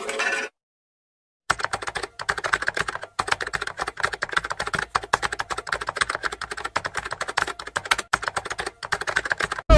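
Fast, continuous clatter of keys being typed on a computer keyboard, starting after about a second of silence and stopping just before the end.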